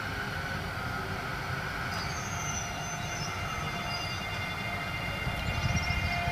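SNCF double-deck TER electric multiple unit moving slowly past, with a steady low rumble. Several thin high whining tones from its traction equipment come in about two seconds in.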